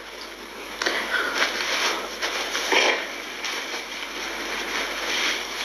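A woman crying: sniffling and breathy sobs between her sung lament.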